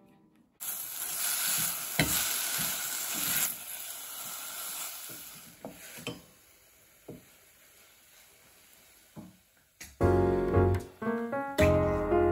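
Onion, bacon and mushroom sizzling in a stainless steel saucepan while a spatula stirs them, with a few taps and scrapes against the pan. The sizzle starts loud just under a second in, dies down after about three seconds, and piano music comes in near the end.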